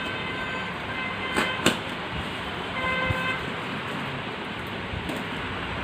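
Steady background traffic noise with short vehicle-horn toots near the start and about three seconds in, and two sharp clicks about a second and a half in.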